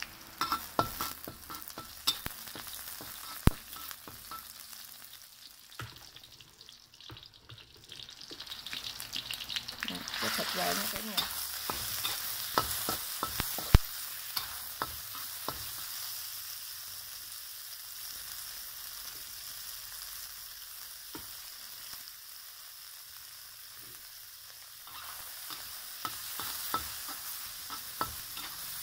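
Garlic and diced pork stir-frying in hot oil in a wok: a steady sizzle, with a metal spatula clicking and scraping against the pan. The sizzle grows louder about ten seconds in, as the pork goes into the hot oil.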